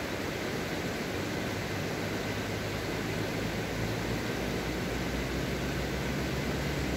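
Steady rushing of a mountain stream, with a vehicle engine rumbling louder in the last couple of seconds.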